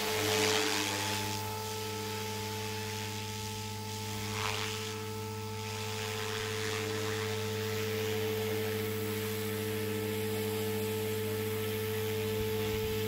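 Protos 380 electric RC helicopter running at high headspeed: the motor and main rotor hold a steady, unchanging hum and whine.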